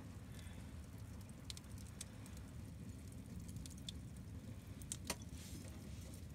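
A small wood stove's fire ticking and crackling faintly over a low steady rumble, with a few light clicks scattered through, the sharpest a pair near the end.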